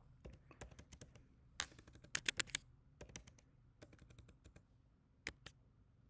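Computer keyboard typing: scattered keystrokes, with a quick run of louder strokes about two seconds in.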